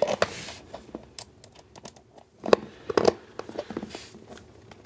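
Clicks, taps and scrapes of hand assembly: small screws and metal strengthener plates being handled and a multitool's screwdriver turned against a base panel, with two sharper knocks about two and a half and three seconds in.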